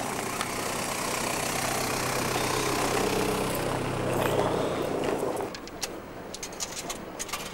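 A car passing on a snowy road, its engine hum and tyre hiss building up and then fading away about five and a half seconds in. After that, a few light clicks.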